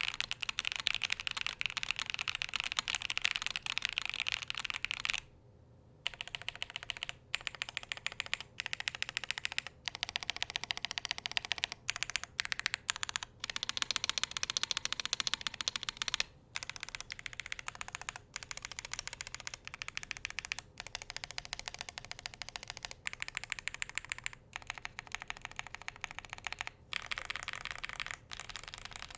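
Continuous fast typing on a Tenet70 custom mechanical keyboard with SOTC switches on a polycarbonate plate, damped with plate silicone and case foam: a dense run of key clicks. The typing stops briefly about five seconds in and pauses for a moment a few more times.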